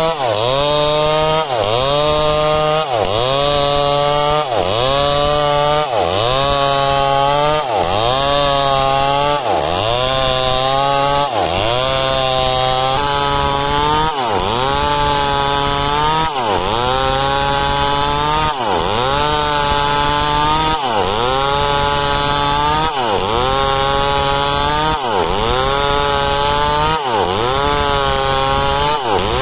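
Two-stroke chainsaw ripping a log lengthwise along the grain, running at full throttle. Its engine pitch drops sharply under load and climbs back in a steady rhythm, about every one and a half seconds at first and about every two seconds later.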